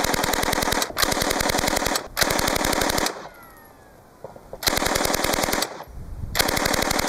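Full-auto 9mm M11A1 submachine gun with a Lage MAX-31A mk2 Suomi drum upper and one VBS buffer spacer, firing at about 760 rounds a minute. Five bursts of about a second each: the first three almost back to back, then a pause of about a second and a half before the last two.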